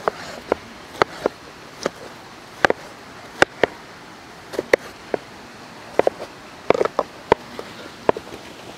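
Kitchen knife cutting through watermelon and knocking against a wooden cutting board: about twenty sharp chops in an irregular rhythm, two or three a second.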